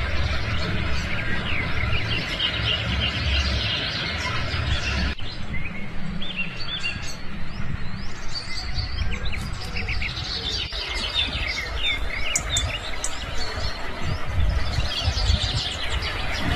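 Chorus of a waterbird colony: many birds chirping and calling over one another, with a steady low rumble underneath.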